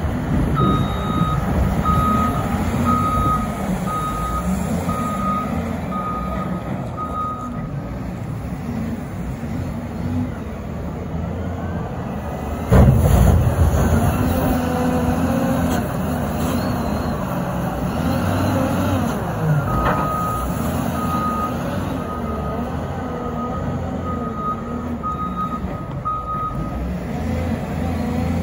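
Cat 950M wheel loader's diesel engine working under load, its reversing alarm beeping about once a second for several seconds, twice. A single loud bang a little under halfway through as the loader works the snow pile.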